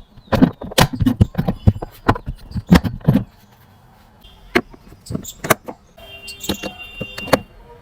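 A quick run of sharp clicks and knocks, as of hard parts being handled. They thin out after about three seconds, and a few steady electronic-sounding tones join them near the end.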